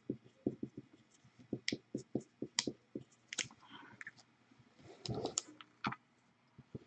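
Felt-tip permanent marker writing on a plastic card sleeve: a quick, irregular run of short scratchy strokes. A little after three seconds there is a sharper click, then a brief rustle of plastic-sleeved cards being handled.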